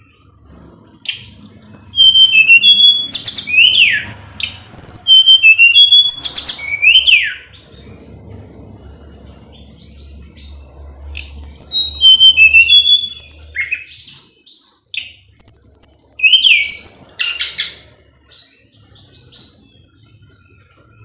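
Tledekan gunung (Sunda robin) singing loud bouts of high whistles and chirps, with quick falling notes and sharp rising sweeps. There are four bouts with short pauses between them.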